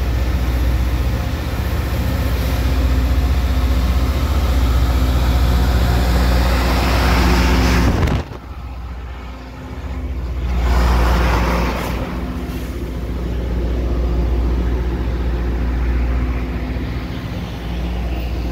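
Loram rail grinder train passing close below: a steady diesel engine drone under a harsh grinding hiss from its grinding stones on the rail. The hiss builds, cuts off suddenly about eight seconds in, flares again briefly around eleven seconds, then the engine drone carries on.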